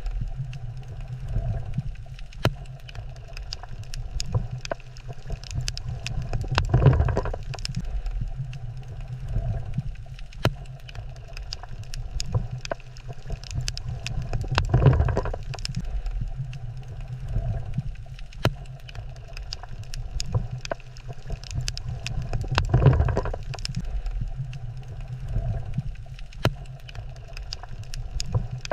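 Water ambience: a steady low rumble that swells about every eight seconds, with scattered sharp clicks throughout.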